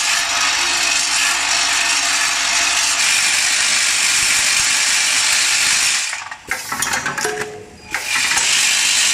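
High-speed parts-counting packaging machine running, with small parts clattering through it in a dense, continuous rattle. The rattle drops out about six seconds in, leaving a few clicks, and resumes about two seconds later.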